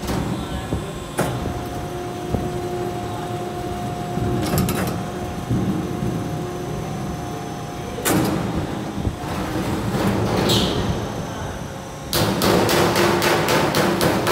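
Vertical Pittsburgh seam closer running, a steady motor hum under scattered metal clanks as the closing head works along the duct seam. About 12 seconds in, a rapid run of sharp strikes starts at about six a second.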